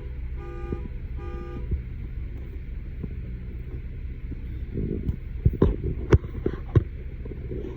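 A car's warning chime beeping in a steady repeating pattern, a little under twice a second, stopping about a second and a half in, over a steady low hum. A few sharp clicks follow near the end.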